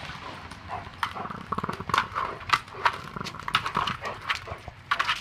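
Dog playing with a large ball on a concrete patio: a quick, irregular run of knocks and scuffs as it noses and bats the ball around, with a brief rapid rattle of pulses about a second and a half in.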